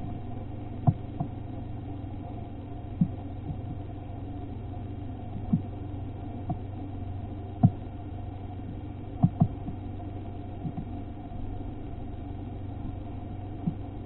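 About ten scattered sharp taps of brown-headed cowbirds pecking at sunflower seeds on a wooden platform feeder, over a steady low hum.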